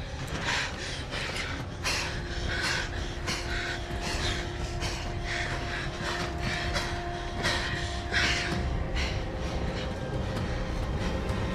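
A woman breathing hard in quick, rhythmic gasps, about two a second, over a low rumble. A steady low hum sounds through the middle stretch.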